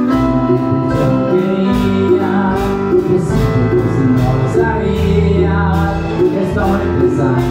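Live band playing a Christian worship song on electric keyboard, with a low bass line and voices singing along.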